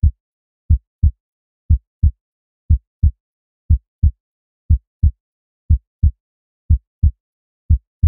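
Heartbeat sound effect: a steady lub-dub of paired low thumps, about one beat a second, with dead silence between the beats.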